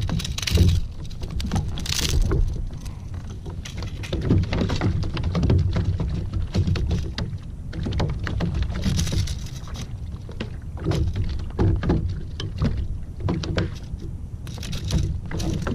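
Water slapping and splashing against a small fishing boat's hull, with wind rumbling on the microphone and scattered knocks and thumps throughout.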